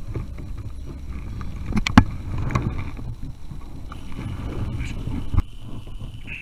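Handling knocks and thumps on a plastic sit-on-top kayak over a low rumble, with a sharp knock about two seconds in and another a little past five seconds.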